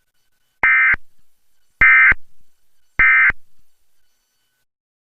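Three short, identical bursts of Emergency Alert System SAME digital data tones, about a second apart: the end-of-message code that closes an EAS alert.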